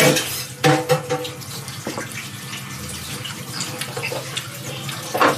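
Wet eating sounds of ripe jackfruit being chewed: sticky chewing with a few sharp lip smacks, the loudest at the start and near the end.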